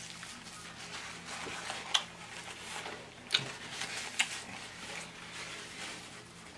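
Close-miked eating sounds: chewing on a chicken wing, with a paper napkin rustling against the mouth and a few sharp mouth clicks, the loudest about two, three and a half and four seconds in.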